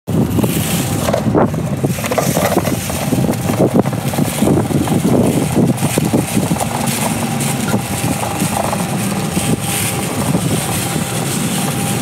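Push magnetic sweeper rolling over a rough concrete bridge deck, its wheels and roller making a continuous rumbling rattle with many small irregular clicks as it picks up spent steel blasting shot. Wind buffets the microphone.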